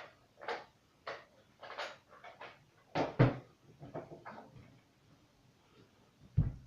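A string of short plastic clicks and knocks from a Nerf Elite Strongarm blaster being handled. The loudest knock comes about three seconds in, and a dull thump comes near the end.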